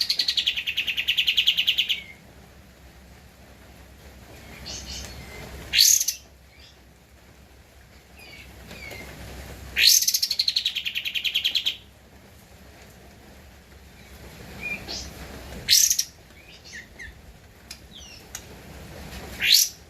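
Kapas tembak bird singing in loud phrases. A sharp rising whistle runs into a fast rattling trill of about two seconds at the start and again about ten seconds later. Further sharp rising whistles come around six, sixteen and nineteen seconds in, with soft short notes in between.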